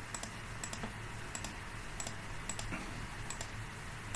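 Light, irregular clicking of computer keys, a few clicks a second, over a faint low steady hum.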